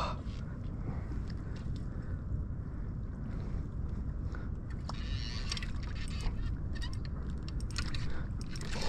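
Steady low rumble of wind and water on the microphone, with scattered light clicks and knocks of fishing tackle being handled, most of them around the middle and near the end, while a hooked bream is played in on light spinning gear.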